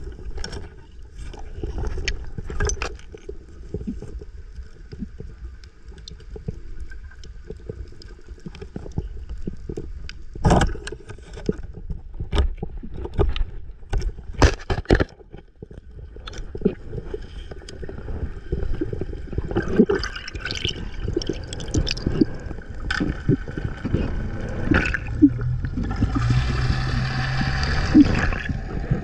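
Underwater sound through a diving camera's housing: a muffled low rumble of water with scattered sharp clicks and knocks. Near the end comes a louder, hissing rush of water and bubbles.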